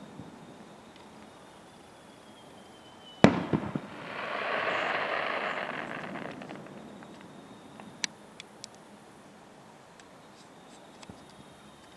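A firework shell bursting with one sharp bang about three seconds in, after a faint whistle as it rises, echoing briefly. A crackling hiss swells and fades over the next few seconds as the burst burns out, with a few small pops later.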